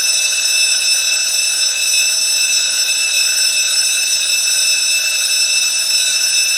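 Electric school bell ringing continuously: one loud, steady ring with several high tones over a hiss.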